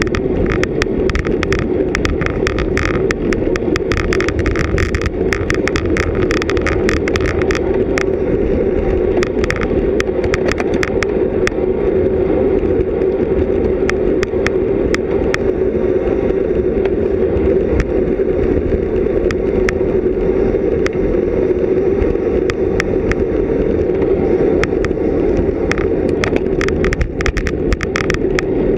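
Steady rush of wind and road noise from a road bicycle at racing speed, picked up by a GoPro Hero 3+ riding along with it. Many irregular sharp clicks and rattles run through it, thickest in the first several seconds and again near the end.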